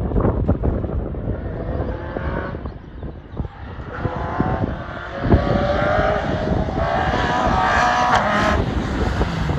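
Renault Clio 172 rally car's 2.0-litre four-cylinder engine revving hard under acceleration, its note climbing from about four seconds in and dropping away near the end, over a heavy low rumble with a sharp knock partway through.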